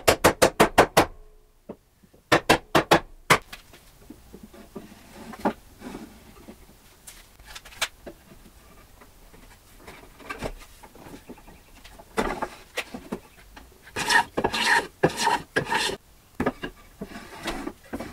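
A round-headed mallet knocking a dovetailed wooden drawer box together: a quick run of sharp knocks, then a second run a couple of seconds later. Then the wooden drawer is pushed into its opening in the table frame, wood rubbing and scraping on wood, loudest in a stretch of scraping about two-thirds of the way through.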